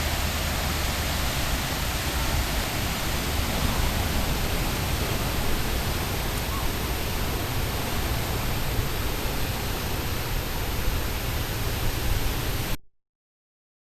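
Wind buffeting the microphone: a steady rushing hiss with a ragged low rumble, cutting off suddenly near the end.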